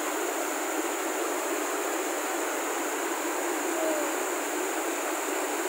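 Water rushing and cascading over rocks below a dam, a steady, even rushing noise.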